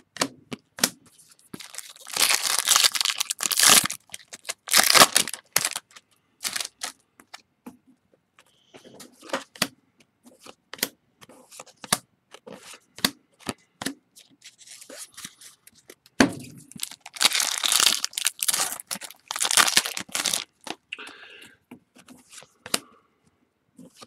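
Trading card pack wrappers being torn open, two longer rips about two seconds in and again past the middle, with crackling and a run of sharp clicks and snaps as the cards are handled and flipped through in between.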